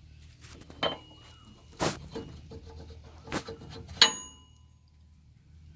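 Metal tools or parts being knocked together: four sharp metallic clinks about a second apart, each left ringing, the last the loudest, over a steady low hum.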